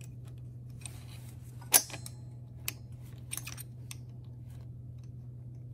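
A few light metal clicks and clinks from the steel holder block and tools being handled while a hot-stamping machine's die holder is reassembled, with one sharp click a little under two seconds in. A steady low hum runs underneath.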